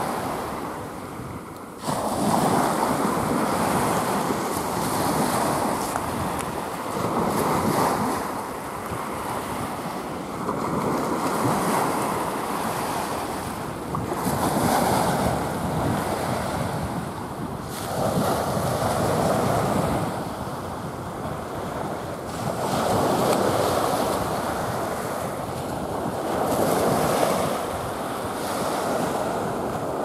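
Small sea waves breaking and washing up a sandy, shell-covered shore, the surf swelling and falling back about every four seconds.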